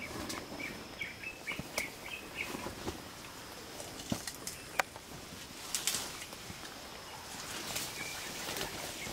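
Forest ambience: a bird's short chirps repeating several times in the first few seconds and again near the end, with a few scattered sharp clicks over a steady background hiss.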